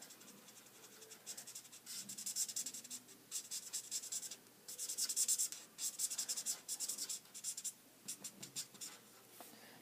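Spectrum Noir alcohol marker nib scratching back and forth on paper in quick short strokes, in several runs with brief pauses between them.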